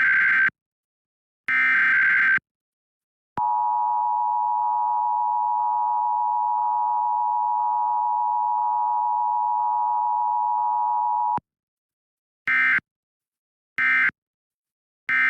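Emergency Alert System test tones: the last of the SAME header's screechy digital data bursts, then the steady two-note attention signal held for about eight seconds, then three short end-of-message data bursts about a second apart. The test carries no spoken message.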